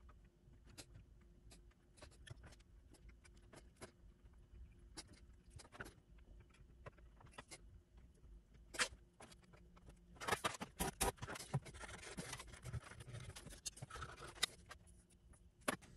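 Faint, scattered clicks of multimeter test probes touching solder pads on a circuit board. From about ten seconds in comes a denser run of scraping and clicking as the board is handled and probed.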